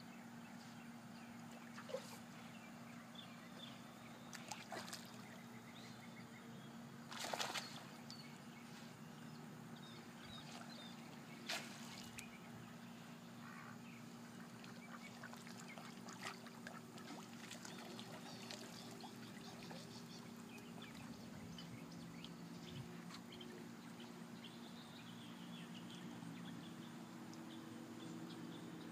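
Ducks quacking a few times in short calls, the loudest cluster about seven seconds in, over faint water sloshing from a swimming dog. A steady low hum sits underneath.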